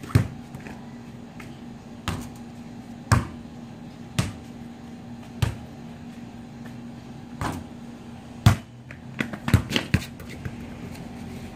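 A Spalding basketball hitting the ground in irregular single thuds, about one every second or two, then a quick run of bounces close together near the end. A steady low hum runs underneath.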